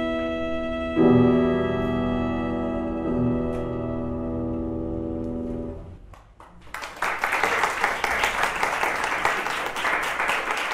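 Cello and piano holding the final notes of a slow piece, with two more chords struck, dying away about six seconds in. About a second later, applause starts.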